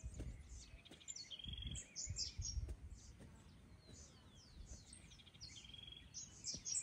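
Several small birds chirping, with many short high notes that slide downward and, twice, a brief rapid trill. A few faint low thumps sound under them.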